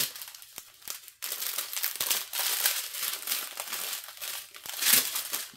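Clear plastic bags of diamond-painting resin drills crinkling and rustling as they are handled, with a loud stretch starting about a second in and another loud rustle near the end.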